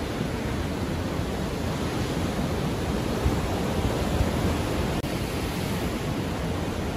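Ocean surf: a steady wash of waves without distinct breaks.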